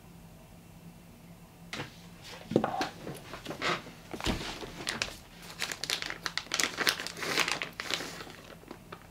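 Plastic bag of grated mozzarella crinkling as it is handled and a hand rummages inside it. It comes in irregular crackles that start about two seconds in.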